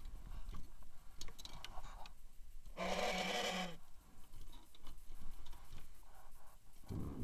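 Two-wheel-drive off-road motorcycle engine running low and faint, with light ticks. A short, louder burst with a steady low tone comes about three seconds in, and the engine picks up again near the end.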